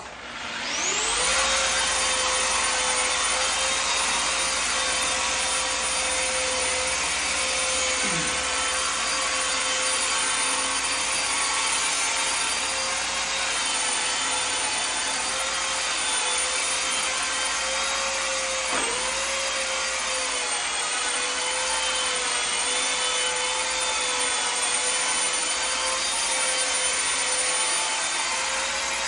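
Electric polisher fitted with a 1000-grit sanding disc, spinning up about a second in and then running steadily as it sands a faux-marble wall finish toward a mirror gloss. Its pitch dips briefly twice.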